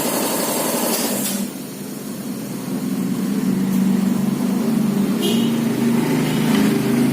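An engine idling steadily. A hiss in the first second or so stops, and the engine then grows gradually louder.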